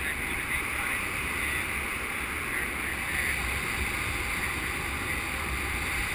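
Steady rush of airflow over an action camera's microphone in paraglider flight, with a low buffeting rumble underneath.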